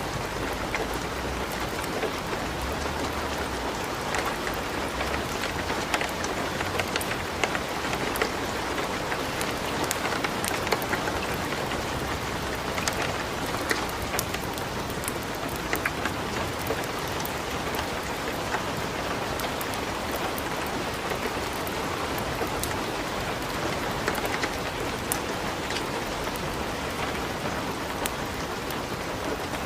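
Light steady rain together with a wood fire crackling in a fireplace, many small sharp pops scattered over the even hiss.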